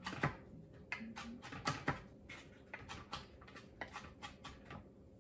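Kitchen knife chopping garlic on a wooden cutting board: irregular sharp taps of the blade against the board, several a second, thinning out near the end.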